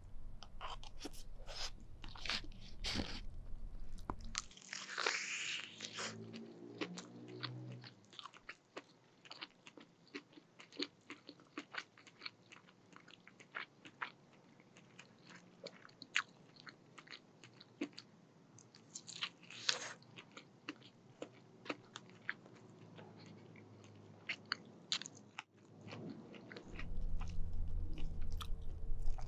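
Crispy fried chicken being bitten and chewed close to the microphone: a run of sharp crunches with softer chewing between, the loudest crunches a few seconds in and again near the middle.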